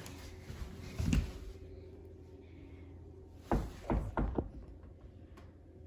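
Interior door with a lever handle being handled and opened: a thump about a second in, then a quick run of three knocks and bumps, and a small click near the end.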